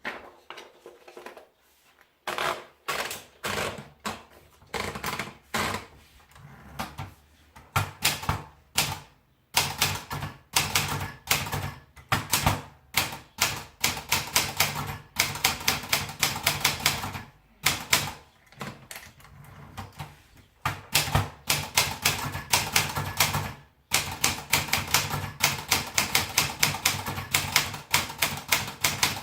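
Olympia Splendid 66 portable manual typewriter being typed on: fast runs of sharp key strikes in bursts, with short pauses between them.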